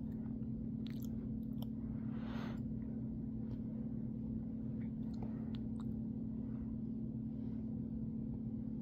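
A person chewing and swallowing a mouthful of soft chocolate ice cream with marshmallow and fudge pieces: faint wet mouth sounds and small scattered clicks over a steady low hum.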